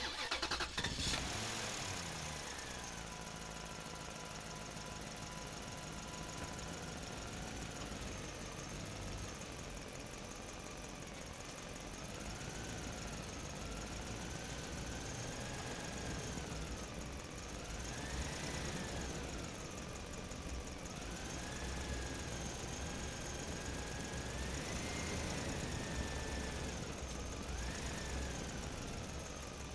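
A truck's engine running as it drives slowly, a little louder in the first second or two, then a steady rumble with a whine whose pitch rises and falls several times as the speed changes.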